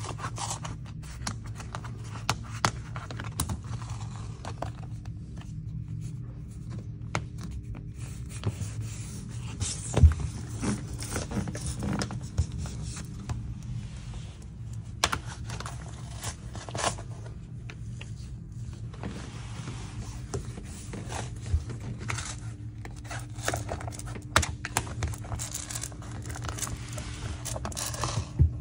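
Blade of a Wolff Lino Cut 2 flooring trimmer scraping and slicing through luxury vinyl tile planks as it is pushed along a border plank, in stretches of scratchy cutting. Scattered sharp clicks and knocks of the tool and planks being handled, the loudest about ten seconds in, over a steady low hum.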